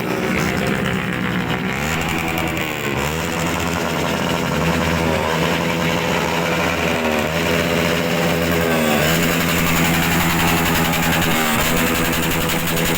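Motorcycle engines with loud aftermarket exhausts being revved against each other, the note rising and dropping back in quick blips every couple of seconds over a steady idle.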